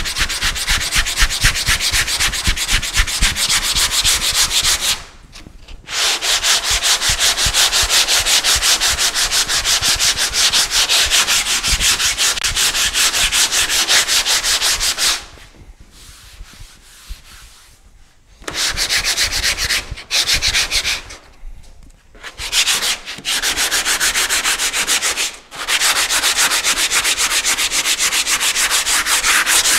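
Body filler on a car panel being sanded by hand with a sanding block: quick, steady back-and-forth strokes of sandpaper. The sanding stops briefly about five seconds in, for a longer pause from about fifteen to eighteen seconds, and for a few short breaks after that.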